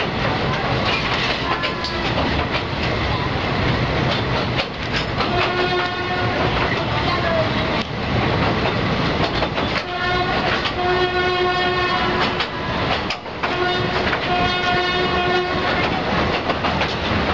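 Train rolling across a steel truss bridge, its wheels rumbling and clacking on the rails. The locomotive's horn sounds three times: a short blast about five seconds in, then two longer blasts around ten and fourteen seconds in.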